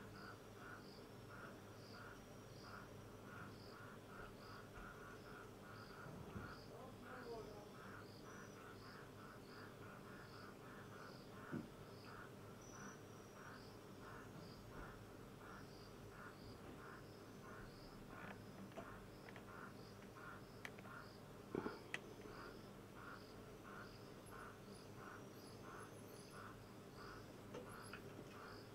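Faint night insects chirping in a steady rhythm of about three pulses a second, with a few brief clicks now and then.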